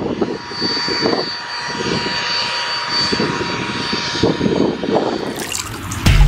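BAE Systems Hawk T2's Rolls-Royce Turbomeca Adour turbofan running as the jet taxis past at close range: a steady loud hiss with a high, steady whine. Near the end it gives way to a deep boom from an intro music sting.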